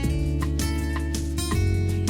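Background music led by a strummed acoustic guitar, with a steady strumming rhythm of about two strums a second.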